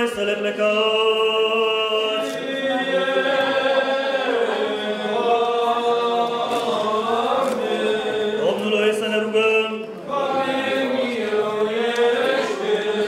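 Eastern Orthodox liturgical chanting: a sung response in long, held notes, with a brief break about ten seconds in.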